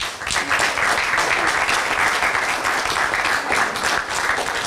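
A group of people applauding, a steady patter of many hands clapping.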